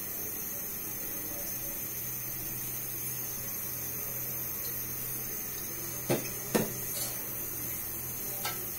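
Steady low room hum, with two light knocks a little after six seconds in and a fainter one near the end.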